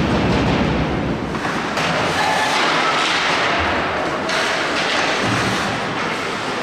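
Ice hockey play in an arena: a few thuds from play along the boards over a steady, echoing din of the rink and spectators.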